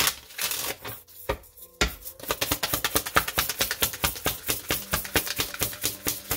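A deck of cards being shuffled by hand: a short brush of cards, then from about two seconds in a fast, even run of light card clicks, about seven a second.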